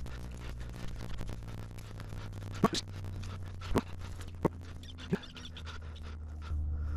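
Digging and scraping in field soil while recovering a metal-detector target: a continuous scratchy crunch of earth. About two and a half seconds in come four sharp clicks, spaced under a second apart.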